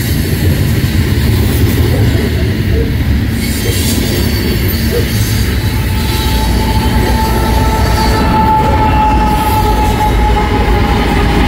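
Freight train passing close: tank cars and a covered hopper roll by with a steady low rumble of wheels on rail, then two diesel locomotives at the rear of the train pass with their engines running. About halfway through, a thin, steady wheel squeal sets in and holds.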